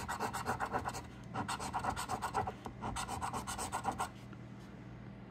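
A coin scraping the latex coating off a scratch-off lottery ticket in rapid back-and-forth strokes. It comes in three runs, with short pauses between them, and stops about four seconds in.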